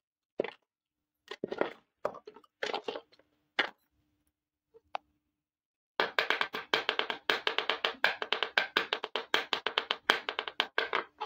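Small plastic toy kitchen pieces clattering and knocking as they are handled, in short separate bursts. From about six seconds in, a fast, dense run of dry plastic clicks and rattles while a small lime-green plastic toy piece is worked in the hand against the floor.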